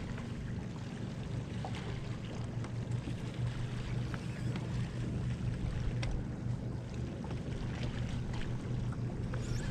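A fishing boat's motor running with a steady low hum, with faint scattered ticks over it.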